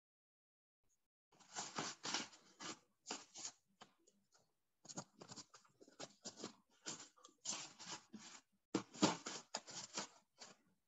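Faint, irregular scratching and rustling on paper in short bursts, starting about a second and a half in.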